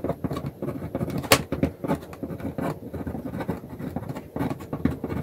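Ballpoint pen scratching across paper as a line of letters and numbers is written out, in short irregular strokes, with one sharp click a little over a second in.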